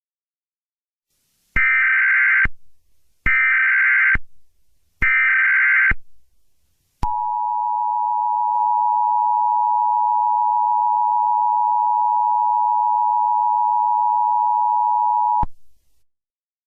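Emergency Alert System header: three short bursts of warbling data tones about a second and a half apart, then the steady two-tone EAS attention signal held for about eight and a half seconds before cutting off suddenly, announcing an emergency alert.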